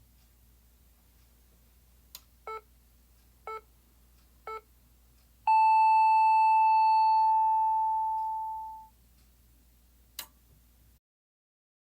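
Electronic time-signal beeps: three short beeps one second apart, then a long, higher tone that fades away over about three seconds. There is a click just before the beeps and another after the tone.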